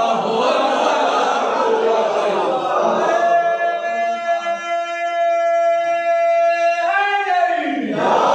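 Urdu devotional verse being sung. For the first few seconds voices sing together, then a single male voice holds one long, steady note for about four seconds before letting it fall away near the end.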